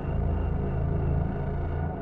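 Dark ambient electronic music from a Teenage Engineering EP-133 K.O. II sampler playing glitched sounds recorded from a Korg NTS-1 synthesizer: a deep, steady low drone under a dense, grainy texture, the top hiss thinning out near the end.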